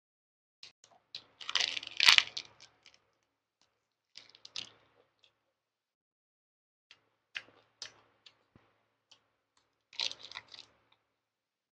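Close-up chewing of a rice-paper roll of grilled snakehead fish, vermicelli, lettuce and raw herbs. Wet, crunchy crackles come in four bursts, loudest about two seconds in.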